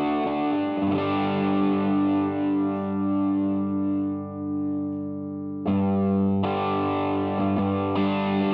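Electric guitar played through a Mooer Green Mile overdrive pedal, a Tube Screamer clone, in its Hot mode: distorted chords left to ring. One chord fades out about halfway, and a fresh chord is struck with a few more strums near the end.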